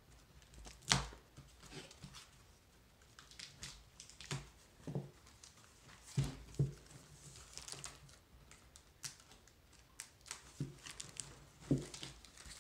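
Cardboard mailer being pulled and torn open by hand: scattered crinkling, tearing of tape and cardboard, and small knocks, with one sharp knock about a second in.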